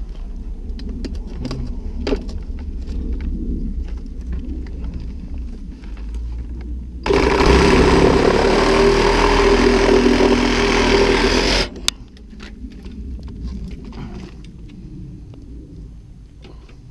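Cordless reciprocating saw running for about five seconds, cutting into 4-inch thin-wall ABS sewer pipe, with a steady motor tone; it starts and stops abruptly. Before and after the cut there is scraping, rustling and knocking from handling in a dirt trench.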